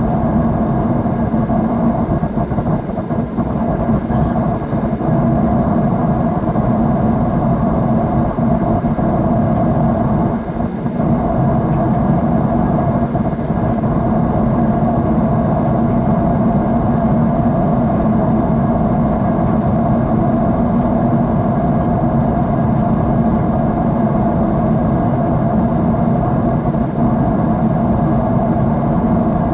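Steady drone of an airliner's jet engines and airflow as heard inside the passenger cabin in cruise, a dense rumble with a lower and a mid-pitched band held throughout.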